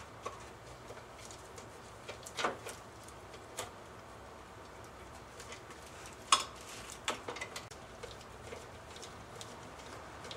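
Scattered light clicks and knocks of hands handling parts and a hand tool in a car's engine bay, with two sharper knocks about two and a half and six seconds in.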